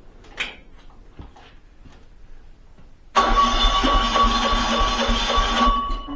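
A mini excavator's engine being cranked by its starter motor: a sudden loud grinding run with a steady whine, lasting about two and a half seconds, then it stops. Before it there are only faint clicks.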